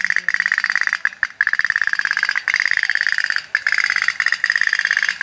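Candle-fired tin pop-pop boat (kapal otok-otok) running on water, its boiler diaphragm ticking in a fast, even, high rattle, the 'tek-tek-tek' of a working otok-otok, with brief breaks about a second in and three and a half seconds in.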